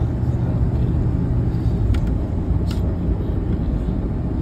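Steady low rumble of engine and tyre road noise inside a moving vehicle's cab at about 25 mph.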